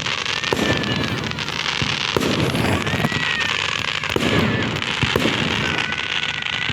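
Fireworks going off in a continuous display: a dense run of crackles and bangs.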